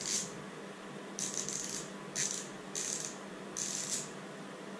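Hand driver with a small 5mm socket ratcheting in five short bursts as it undoes the small nuts on a model steam locomotive's cylinders.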